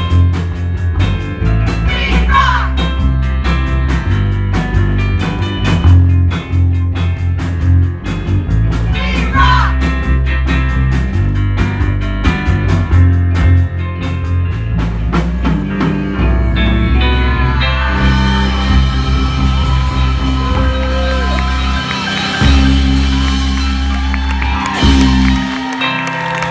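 Live rock band playing: drum kit keeping a steady beat under bass, electric guitar and singing. About two-thirds of the way in, the cymbals grow brighter, and the song winds down to its end near the close.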